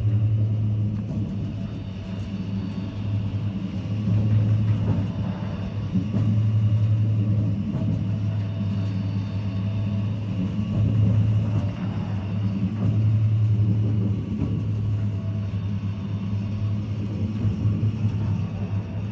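Oil-well pumpjack running: a steady low hum from its drive that swells and eases every two to three seconds as the pump cycles.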